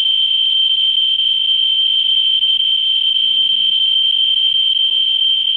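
Ludlum Model 3 survey meter's audio speaker, driven by its 44-9 pancake Geiger-Müller probe, giving a steady high-pitched buzz as the clicks run together. It is counting about 18,000 to 19,000 counts per minute from radioactive torbernite/kasolite uranium ore.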